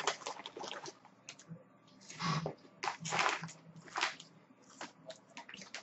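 Crunchy snack chips being chewed and the chip bag crinkling in the hand, heard as a few short crackly bursts about two to five seconds in.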